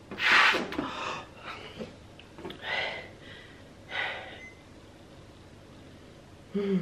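A hard breath blown into a latex balloon by mouth, followed by a few heavy breaths out, then a short voiced hum near the end.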